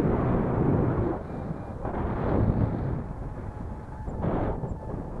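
Airflow buffeting the camera microphone of a paraglider in flight: a low rumble that gusts and eases in surges, loud at the start, dropping a little after a second, rising again around two seconds, and surging briefly a little past four seconds.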